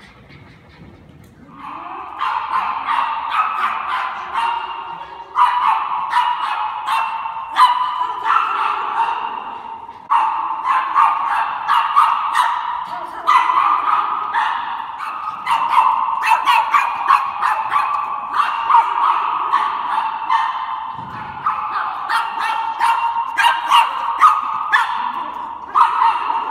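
Small dog barking in rapid, high-pitched yaps, almost without pause, starting about two seconds in while it runs an agility course.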